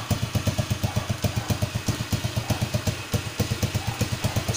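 Motorcycle engine idling, a steady even beat of about eight exhaust pulses a second.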